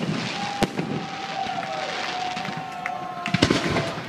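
Aerial fireworks going off: a sharp bang about half a second in, then a cluster of bangs near the end, with crackling throughout. A steady high whistle runs for about three seconds between the bangs.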